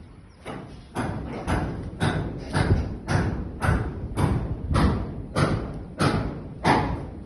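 Repeated heavy thuds at a steady pace, a little under two a second, each with a short ringing tail, as of blows struck in construction work.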